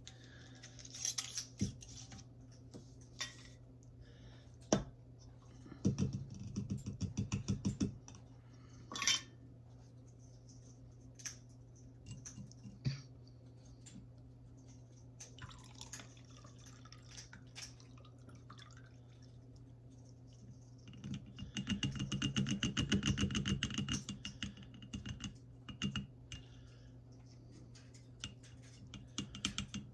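Glass mason jars handled on a table: scattered clicks and clinks of glass and metal lids, and a quick run of ticks as a jar's lid is worked. Vodka tincture is poured and trickles through a mesh strainer into a glass jar, loudest as a dense run of rapid ticking and dripping about three-quarters of the way through. A steady low hum sits underneath.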